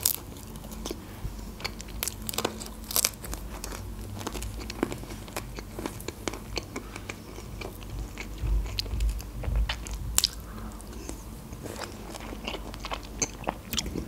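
Close-up eating sounds of pizza being bitten and chewed, with many small, crisp crunches.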